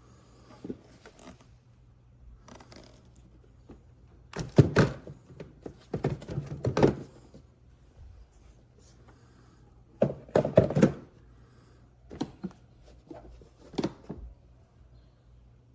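Hard objects being handled: clusters of thunks and knocks, the loudest a few seconds in and again about two-thirds of the way through, with quieter knocks in between.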